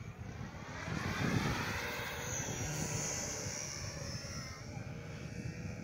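Radio-controlled model airplane flying a low pass, its motor and propeller growing louder about a second in and then fading as it moves away, the pitch bending downward.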